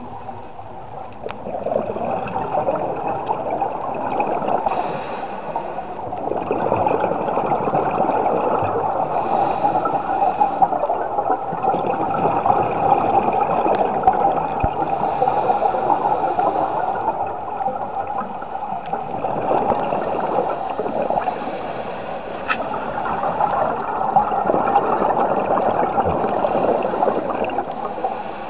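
Scuba diver's regulator breathing heard through an underwater camera housing: exhaled air bubbling and gurgling in swells that rise and fade every few seconds.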